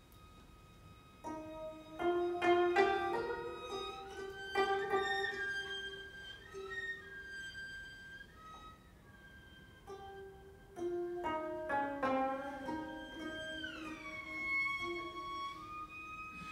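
Twenty-five-string gayageum plucked in a slow, free-rhythm passage, with clusters of notes about a second in and again about ten seconds in, and notes sliding in pitch where the strings are pressed and released. A cello holds soft sustained tones underneath.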